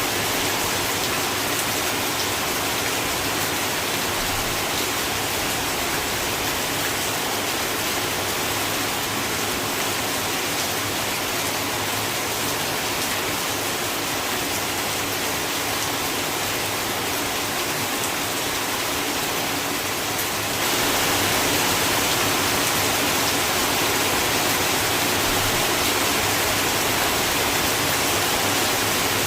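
Steady heavy rain drumming on a corrugated zinc roof, a dense even hiss with no pauses; about two-thirds of the way through it steps up slightly louder.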